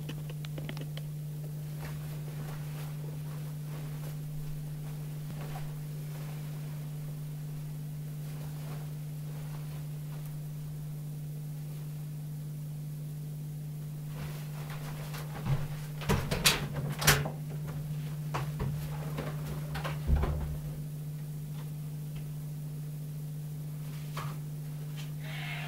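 Steady low hum, with a short run of knocks and clattering about two-thirds of the way through, the loudest a little after the middle.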